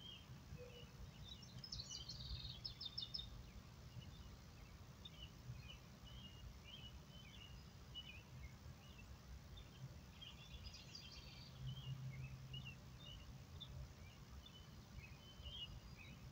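Faint birds chirping: scattered short chirps, with quick trilled phrases about two seconds in and again about ten seconds in, over a low steady hum.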